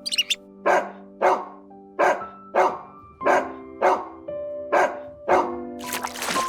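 A dog barking repeatedly, about nine short barks evenly spaced at under a second apart, over soft instrumental background music with held notes. A hissing noise comes in near the end.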